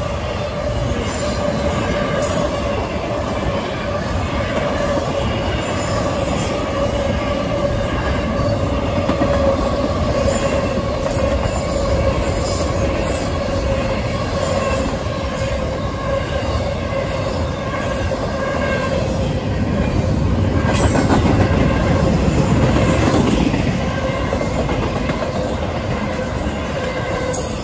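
A long CSX intermodal freight train passing at speed: the steady rumble and clatter of its cars' wheels on the rails, with a steady whine over it. The rumble swells louder about two-thirds of the way through.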